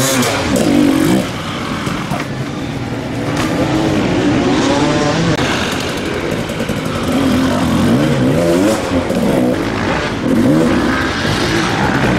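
Dirt bike engines revving hard and unevenly, the pitch rising and falling again and again as a rider works the throttle to claw a stuck bike up a steep, slippery slope.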